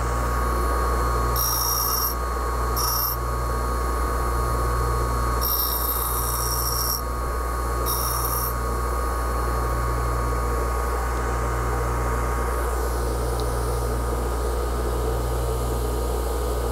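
Bench grinder motor running steadily with a hum. About 1.5, 3, 5.5 and 8 seconds in, four short high-pitched grinding passes are heard as the O1 tool-steel boring bar is touched to the wheel to grind a radius on its cutting tip.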